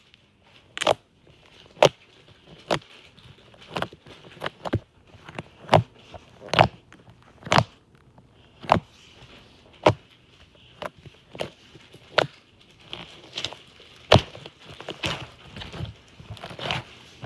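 Cloud slime being pressed and poked close to the microphone, giving sharp sticky pops and clicks at irregular spacing, about one a second.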